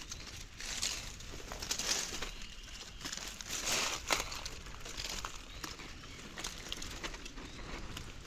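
Dry leaves and twigs rustling and crackling in uneven bursts, with scattered small snaps and one sharper click about four seconds in.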